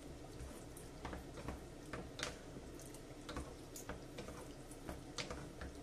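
Two wooden spoons stirring thick bolognese sauce in a frying pan: faint, irregular clicks and soft knocks of wood against the pan, a few every second.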